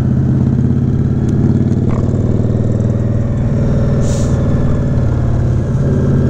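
Indian Scout Bobber's V-twin engine running steadily at low speed, heard from the rider's seat. A brief hiss comes about four seconds in.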